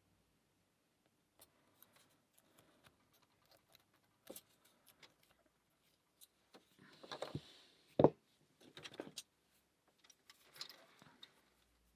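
Metal lock pick and tension wrench working in a pin-tumbler lock cylinder: faint scattered clicks and scrapes as the pins are probed, with a brief louder scraping about seven seconds in and a single sharp knock just after.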